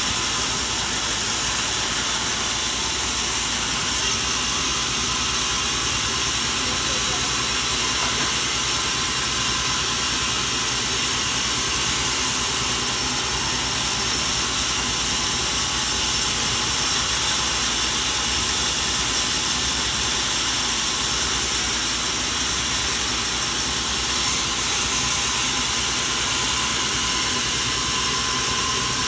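Steady machinery noise: a motor running at an even pitch under a constant hiss, with no change for the whole stretch.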